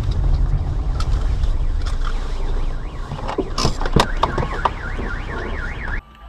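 Car alarm wailing, its tone sweeping rapidly up and down about three times a second, setting in about three and a half seconds in. It sounds over the low rumble of a car's engine and tyres heard from inside the cabin, with a few sharp knocks as it starts, and cuts off abruptly near the end.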